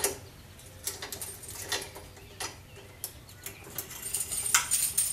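Scattered metallic clicks and clinks as brewing hoses are fitted onto the valves and fittings of stainless brewing kettles and a pump. There are irregular small knocks, with a sharper click near the end.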